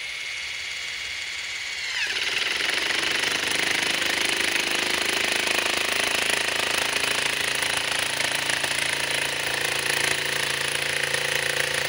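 DeWalt DCF870 hydraulic (oil-pulse) impact driver on speed 1 driving a long screw into a log. The motor spins freely for about two seconds, then its pitch drops as the pulse mechanism takes the load, and it pulses steadily on without driving the screw home: speed 1 is too weak to put it in.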